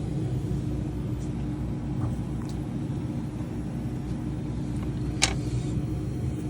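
3D printers running with a steady low hum and a steady tone, with a few faint ticks and one sharp click about five seconds in.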